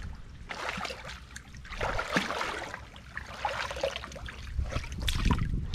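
Shallow water sloshing and splashing around legs in chest waders as a person wades through it, in irregular bursts of movement.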